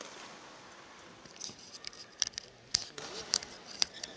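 Indoor badminton hall between rallies: faint steady hall noise with about six short, sharp, high-pitched ticks and squeaks over the second half.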